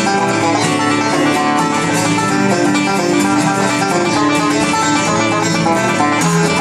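A banjo fitted with a new tone ring, picked in a bluegrass tune together with a steel-string acoustic guitar, playing steadily and loud throughout.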